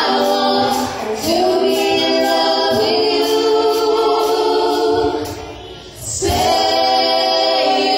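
Two women singing an R&B duet into handheld microphones, holding long notes. The singing dips briefly about three quarters of the way through, then a new note is held.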